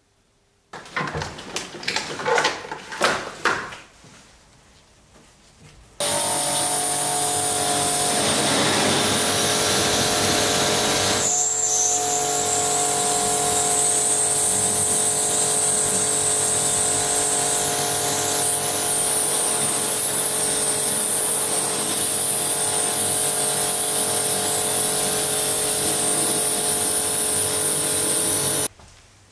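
Electric pressure washer running steadily, its motor and pump humming under the hiss of a high-pressure water jet spraying across a car's engine bay, with a brief break about eleven seconds in. A few seconds of knocking and clatter come first.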